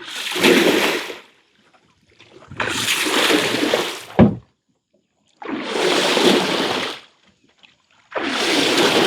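Water being churned and splashed in four separate surges, each lasting a second or so and spaced about three seconds apart, with one sharp knock just after four seconds in.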